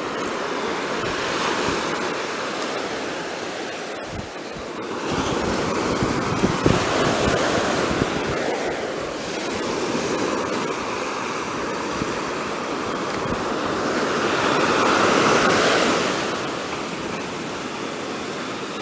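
Ocean surf breaking and washing up a sandy beach, swelling louder twice as waves run in.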